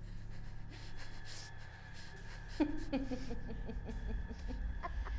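A person breathing hard, with a short falling moan about two and a half seconds in and a run of quick pitched breaths after it, over a steady low hum.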